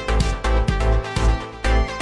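Background music: an electronic track with a steady, heavy bass beat.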